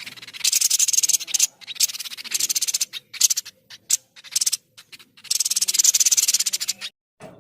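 White-breasted babbler (tepus dada putih) giving fast, rasping, high-pitched chatter in repeated bursts with short pauses between them. The longest burst comes near the end.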